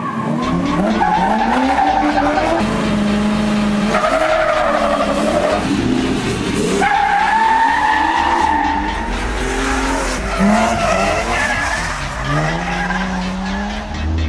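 A race car engine revving hard, its pitch rising and falling several times, with tyres squealing.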